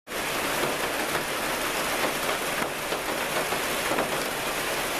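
Heavy rain falling steadily on a greenhouse's double-wall corrugated polycarbonate roof panels, heard from inside the greenhouse.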